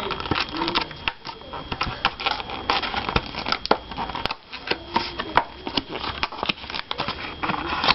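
Hands opening and handling the plastic retail packaging of a phone case: irregular clicks, taps and crinkling.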